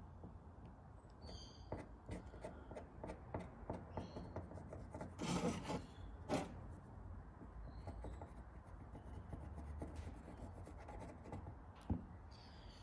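Light rubbing and scraping with scattered small clicks as gloved hands and a syringe tip work gel coat into pinholes on a fibreglass panel. A louder scrape comes about five seconds in, followed by a sharp click.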